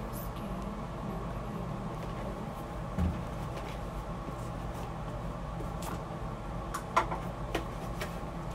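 Handling of a large plastic fabric-softener jug with its cap being twisted, giving a dull knock about three seconds in and a few sharp plastic clicks around seven seconds, over a steady low hum.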